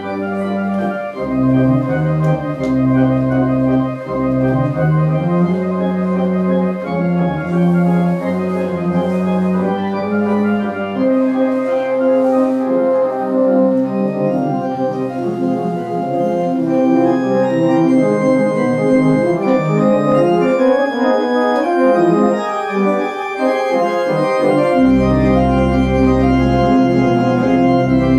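Allen ADC 4600 digital organ playing a piece with held chords over a moving upper melody. The deep pedal bass drops out about eleven seconds in and comes back near the end.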